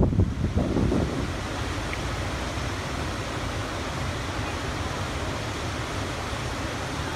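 Wind buffeting the microphone for about the first second, then the steady rushing of a waterfall and whitewater river.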